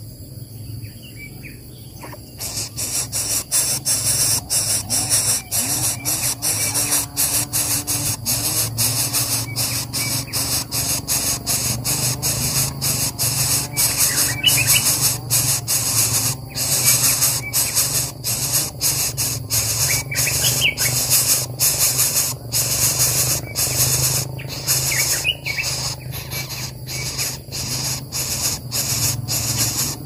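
Coucal chicks in the nest begging with a rapid, raspy hiss made of many short pulses, starting about two seconds in, with a few faint chirps mixed in.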